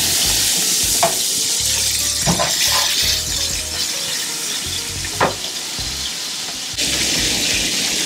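Ground-beef burger patties frying in a hot pan: a steady sizzling hiss of fat, with a few short clinks and scrapes against the pan.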